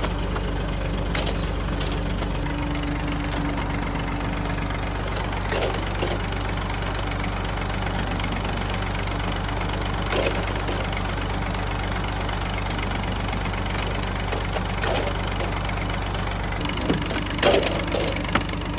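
Massey Ferguson tractor's diesel engine running steadily while driving a clay brick-making machine. Sharp metal clanks from the machine come every few seconds, with a louder cluster near the end.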